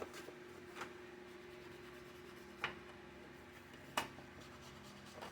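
Paper and craft tools being handled on a table: four soft taps with light rubbing, the sharpest tap about four seconds in, over a faint steady hum.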